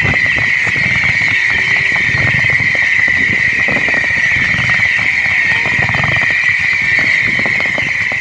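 Fireworks display going off: a steady, dense crackling fizz, broken by repeated low booms.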